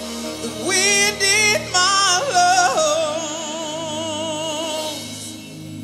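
Live worship music: a woman sings a wordless, ornamented line with wide vibrato over steady sustained backing chords. She comes in loudly about half a second in and ends on a long held, wavering note that fades about five seconds in.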